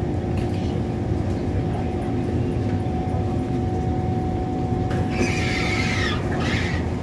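Kawasaki C151 metro train's sliding passenger doors opening noisily about five seconds in, with a squealing rush and a shorter second squeal near the end, over the steady hum of the stopped train.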